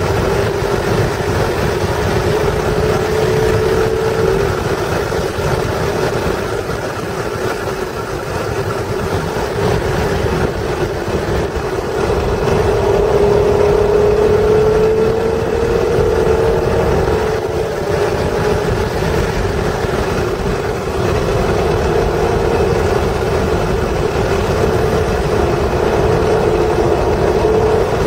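1996 Acura NSX's stock 3.0-litre V6 engine running hard, heard from inside the cabin over steady road and wind noise. Its note drops about four seconds in and climbs again from around twelve seconds as the car slows and accelerates.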